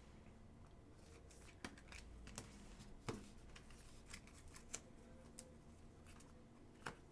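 Near silence with scattered faint clicks and taps, a dozen or so spread irregularly.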